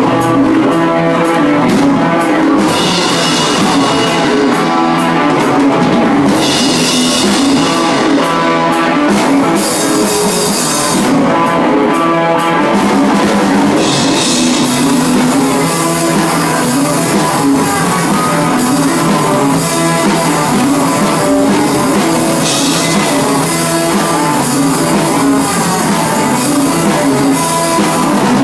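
Live rock band playing loudly: drum kit with crashing cymbals under electric guitars.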